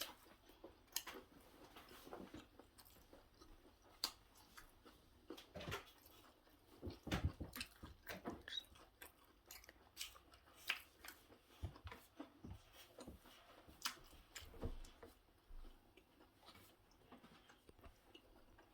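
Quiet chewing and mouth sounds of a person eating lángos: scattered soft smacks and clicks.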